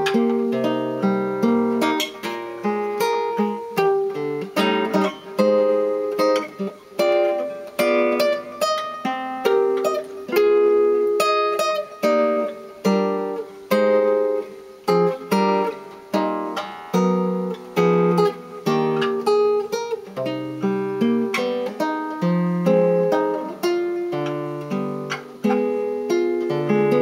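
Solo guitar playing a jazz chord-melody arrangement: a steady run of plucked chords, about one or two a second, each left to ring under the melody note on top.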